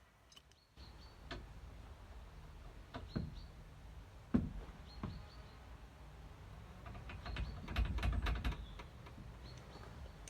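Scattered metal clinks and knocks of a socket and breaker bar being worked on a seized brake caliper housing bolt. The loudest knock comes about four seconds in, and a cluster of clicks with a low rumble comes near the end.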